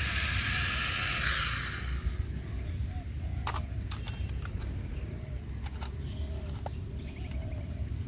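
Small toy quadcopter's electric propeller motors whining, then winding down and stopping about two seconds in. A few light plastic clicks follow over a low background hum.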